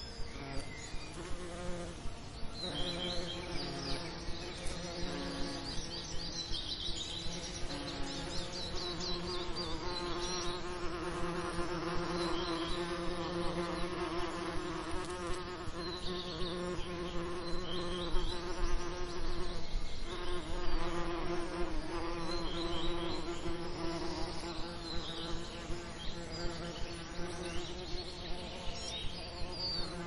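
Bees buzzing: a steady, wavering drone that grows louder through the middle and eases off again. Faint short high chirps come and go above it.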